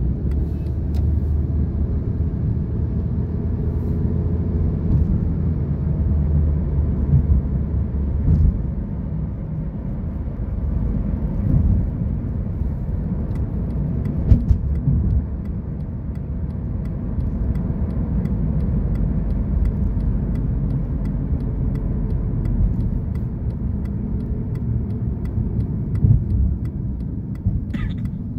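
Car cabin noise while driving: a steady low rumble of engine and road, with a few brief knocks and clicks.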